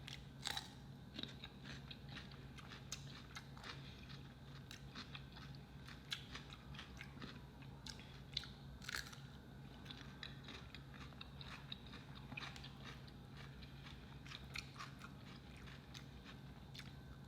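A person chewing and biting food close to the microphone: a scatter of small wet mouth clicks and crunches at a low level, over a steady low hum.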